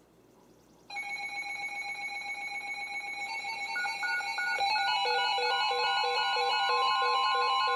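Several NOAA weather radios sounding their alert alarms at once. A stack of steady tones cuts in about a second in, and over the next few seconds more radios join with pulsing beeps at different pitches, building into a layered electronic alarm. It signals an incoming severe thunderstorm warning.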